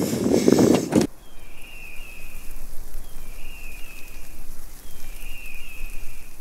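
Wind buffeting the microphone, a loud rumble that cuts off abruptly about a second in. Then open outdoor ambience in which a bird repeats a short high whistled phrase three times, about a second each.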